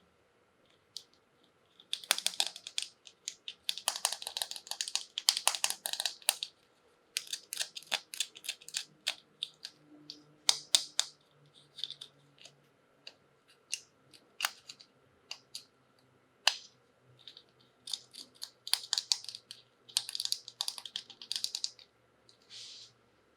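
Toys and their packaging handled up close: irregular runs of sharp clicks and crisp rustling, like small plastic pieces and wrapping being unpacked, with short pauses between runs.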